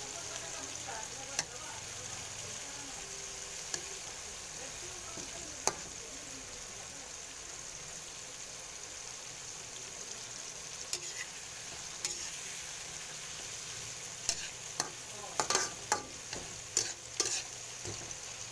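Chopped tomatoes, onions and garlic sizzling in oil in a wok, with a spatula stirring and scraping against the pan. The spatula gives sharp clicks and knocks now and then, with a quick run of them near the end.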